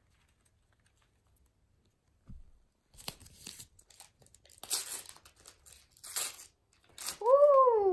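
Panini sticker packet torn open by hand, with a run of sharp tearing and crinkling rustles starting about three seconds in as the wrapper is ripped and the stickers pulled out.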